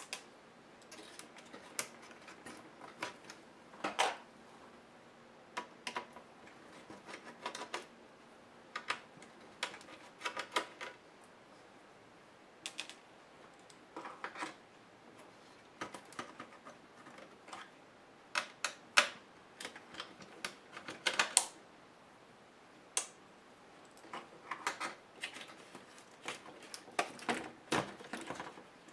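Irregular light clicks and taps of small screwdrivers and plastic and circuit-board laptop parts being handled on a work table, some coming in quick clusters.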